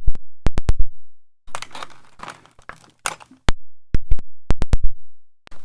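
Segal lock and picking tools being handled on a work surface: a quick irregular series of sharp clicks and knocks, with about two seconds of rustling handling noise starting about a second and a half in.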